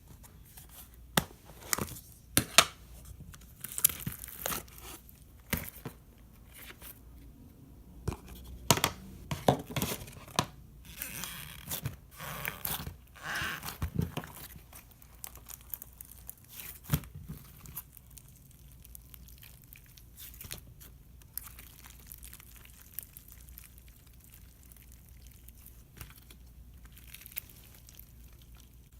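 Foam-bead slime (floam) worked by hand, giving irregular sticky crackles and pops, busiest in the first half and thinning out after.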